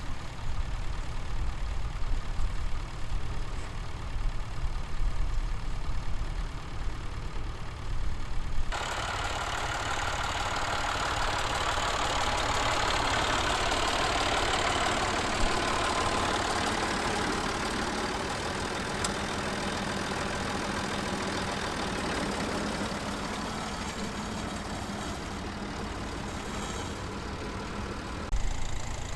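Vintage tractor engines running, with abrupt changes in sound about nine seconds in and near the end. In the middle stretch the engine noise grows louder and then slowly fades.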